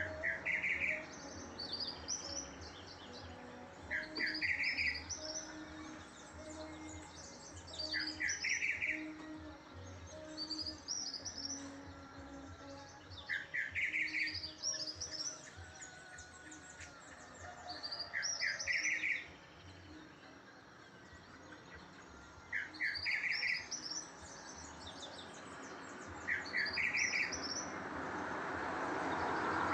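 A bird singing the same short, rapid phrase over and over, about once every four to five seconds, over a steady background hum; a rushing noise grows louder near the end.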